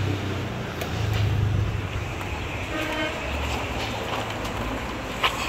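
Steady low vehicle rumble, with a short horn toot about three seconds in and a few light knocks.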